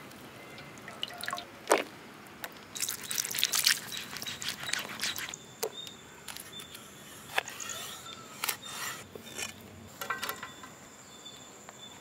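Water dripping and splashing from goat lungs lifted and rinsed in a bowl of water. About halfway through, this gives way to a cleaver cutting the lungs on a wooden log chopping block, a scattering of sharp knocks.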